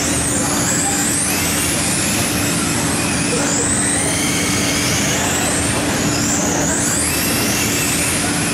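Several radio-controlled sprint cars racing on a dirt oval, their electric motors giving high-pitched whines that rise and fall again and again as the cars speed up on the straights and back off for the turns. A steady low hum runs underneath.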